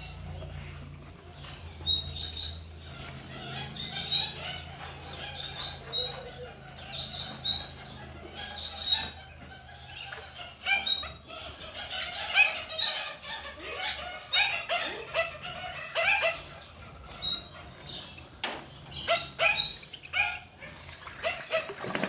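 Aviary birds chirping and calling, many short rising and falling calls overlapping one another throughout, with a low steady hum under the first half.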